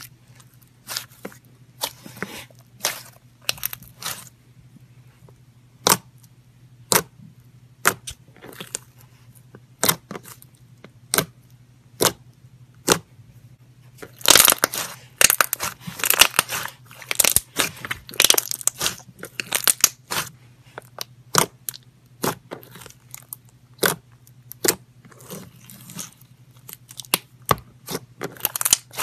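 Glossy slime being folded and squeezed by hand, with trapped air popping in sharp clicks about once a second and a dense run of crackling pops about halfway through.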